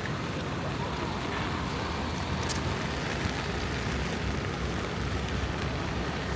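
City street ambience in the rain: a steady hiss of rain and traffic.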